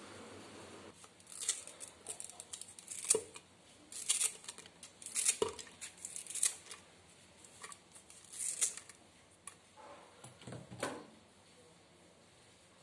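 Scissors snipping pandan leaves into a glass blender jar: a run of irregular sharp cuts starting about a second in.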